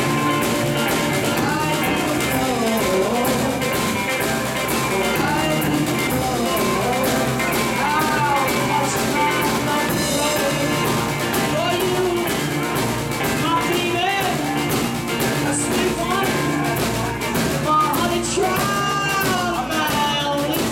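Live rock band playing: two electric guitars over a Ludwig drum kit, with steady drum hits throughout.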